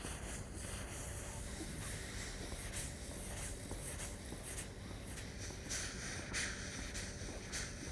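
Breath blown steadily into hands cupped tightly over the mouth: a soft airy hiss with regular puffs that grow stronger in the second half. It is a breath-control exercise for the murli been (snake-charmer's gourd pipe), practising an unbroken flow of air while still breathing in.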